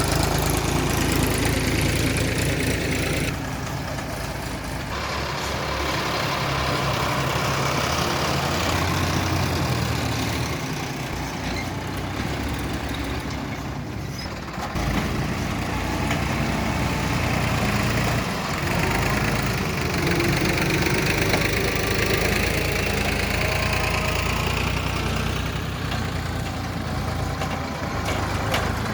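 Heavy diesel machinery running: the engine of a backhoe excavator or tractor, working at a steady pace. The sound changes abruptly about three seconds in and again about halfway through.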